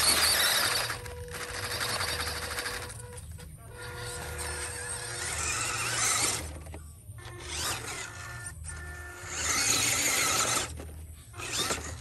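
Electric motors and gearboxes of scale RC crawler trucks whining in surges as they climb a ramp, loudest near the start, about halfway and near the end. Background music with a steady beat runs underneath.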